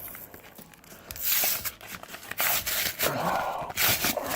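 Stiff plastic blister packaging crinkling and crackling in repeated bursts as it is pried open by hand, starting about a second in.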